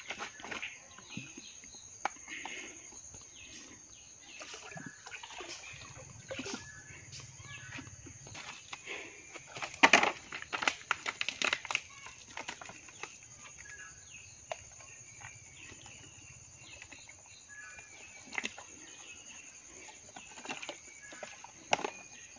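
Crinkling and rustling of a foil sachet being handled and opened over a spray barrel, with scattered small plastic clicks; the loudest part is a quick run of sharp crackles about ten seconds in.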